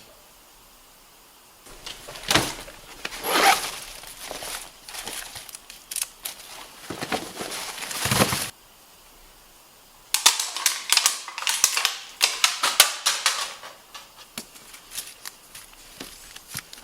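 Nerf blasters firing: many sharp pops and clicks in quick succession, after several noisy rushes of sound.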